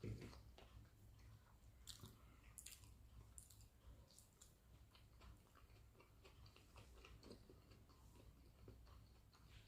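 Faint close-up chewing of rice and egg curry: soft wet mouth clicks and smacks at an irregular pace, over a steady low hum.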